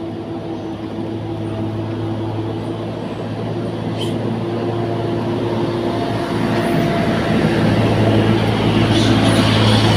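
An engine running steadily with a low hum, growing gradually louder.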